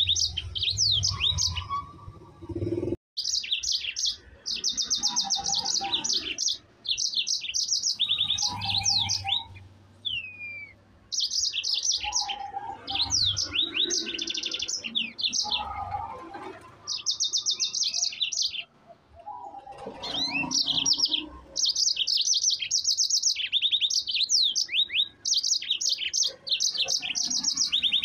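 Yellow-fronted canary singing in long rolling phrases of fast high trills and down-slurred notes, broken by short pauses.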